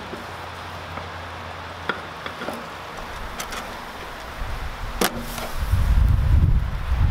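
Kabab koobideh on flat steel skewers sizzling over a charcoal grill: a steady hiss with scattered pops and crackles. About five seconds in there is a sharp click as the skewers are lifted off, followed by a loud low rumble.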